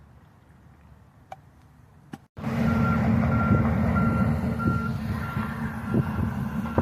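Reversing alarm of a heavy vehicle, a steady high beep repeating a little under twice a second, over a running engine. It starts suddenly about two and a half seconds in, after a quiet stretch with a couple of faint clicks.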